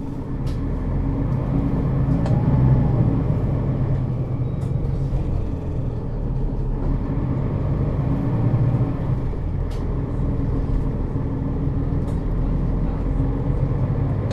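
2013 Setra S 415 NF city bus's diesel engine running with a steady low hum, swelling briefly twice, about two and eight seconds in.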